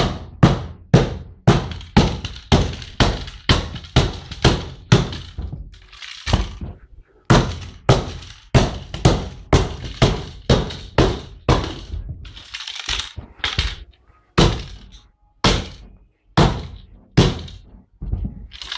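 A plastic Technicolor TG582n router being smashed with a hard tool: a long run of heavy blows, about two a second with a few short pauses, the casing cracking and breaking.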